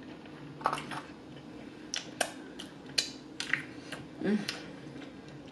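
Close-miked eating sounds: wet lip smacks and sticky mouth clicks as meat is bitten and chewed off a barbecue baby back rib, about half a dozen sharp smacks spread through, with a short hummed "mm" about four seconds in.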